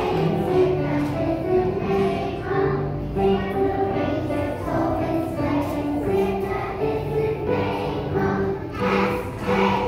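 A class of young children singing a song together in unison, accompanied on an upright piano.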